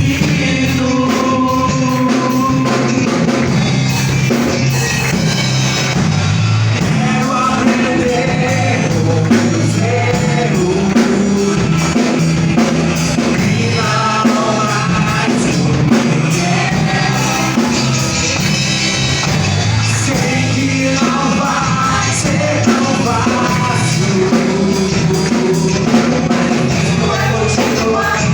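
Church praise band playing gospel worship music live: singing voices over a full band with drums keeping a steady beat.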